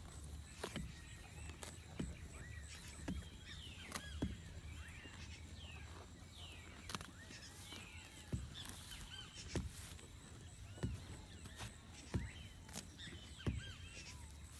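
An ox grazing, tearing off mouthfuls of grass with sharp snaps roughly once a second, while small birds chirp throughout.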